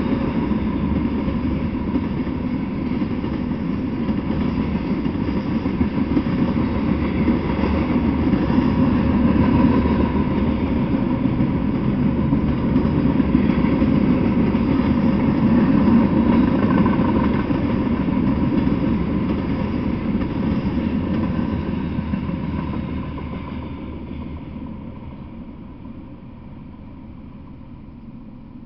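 Freight train rolling past: a steady, loud noise of freight cars' wheels on rail. The noise fades away over a few seconds near the end as the last cars go by.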